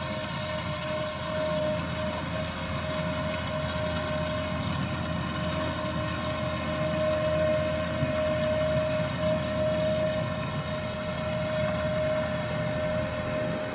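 Ropa Tiger 4 self-propelled sugar beet harvester running as it lifts beets: a steady, high machine whine over a dense low rumble of engine and cleaning gear.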